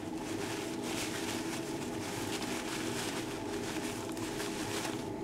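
Paper towel rustling and crinkling with irregular crackles as a Moyu Aosu 4x4 cube wrapped in it is twisted and turned by hand, breaking in freshly applied DNM-37 lube. A steady low hum runs underneath.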